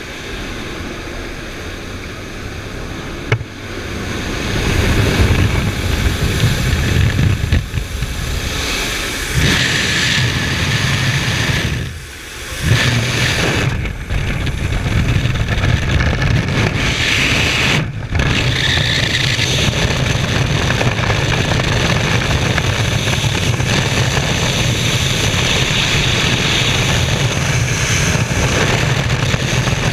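Aircraft cabin noise at an open jump door for the first few seconds, then wind rushing over an action camera's microphone in skydiving freefall. After a click about three seconds in, the wind noise swells and stays loud and steady, dipping briefly twice.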